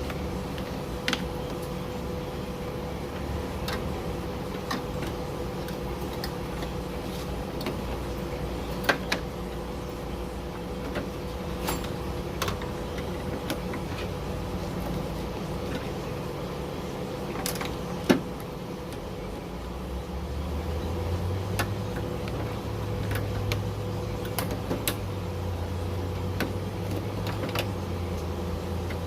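Scattered light clicks and knocks of hand tools and parts being worked inside a car door, over a steady low hum that grows louder about two-thirds of the way through.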